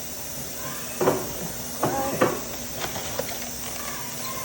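A handful of sharp knocks and clatters, as of household items or containers being handled and set down, with a brief squeak about two seconds in.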